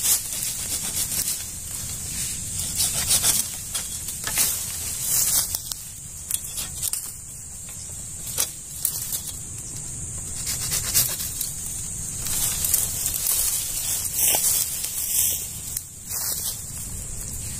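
Dry leaf litter and twigs crackling and rustling in irregular short snaps as a person shifts about and handles the stems of a lantana shrub, over a steady high hiss.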